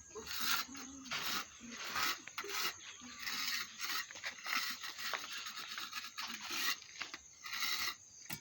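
Repeated rough scraping or rubbing strokes on a hard surface, about one or two a second, some running together in the middle.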